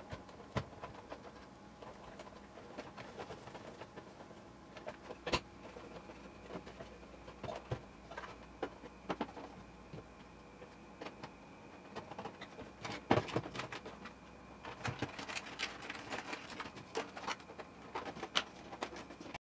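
Plastic housing of a standby lamp being handled and reassembled: scattered clicks and light knocks of plastic parts. A sharper knock comes about five seconds in, a cluster about thirteen seconds in, and frequent clicks near the end.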